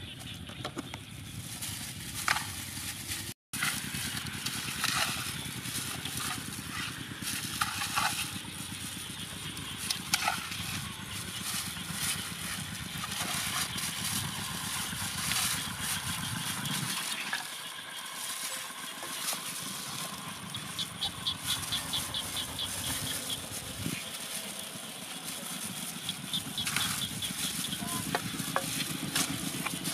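Wet squelching and scraping of hands working chopped chili marinade into a raw whole chicken in an aluminium basin, with short clicks of the bird and hands against the metal, over a steady low rumble.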